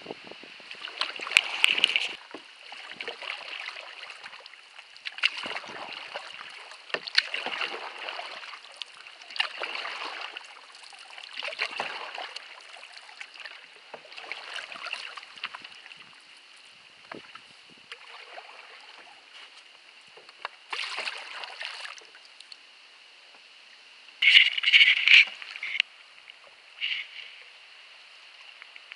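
Canoe paddle strokes in river water: a swishing splash about every two seconds, with a louder burst of noise near the end.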